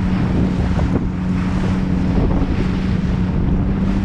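Wind buffeting the microphone over the steady hum of a Sea-Doo GTX 170 personal watercraft's engine idling on choppy water.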